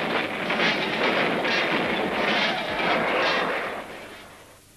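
Loud roar of military aircraft passing low overhead, the pitch dropping as they go by, fading out near the end.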